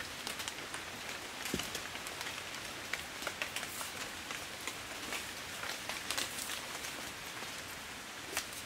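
Steady patter of rain on rainforest leaves, with many small scattered drip ticks and a soft thump about a second and a half in.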